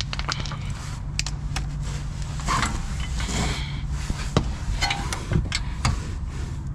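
Scattered metallic clinks and knocks of a socket and long extension being handled and fitted to a cordless impact gun and onto a hub bearing bolt, over a low steady hum in the first couple of seconds.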